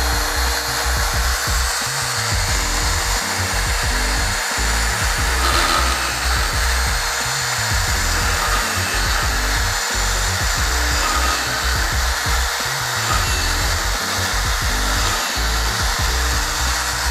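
Electric drill mounted in a drill-press stand, running steadily and boring into a wooden beam, with background music playing over it.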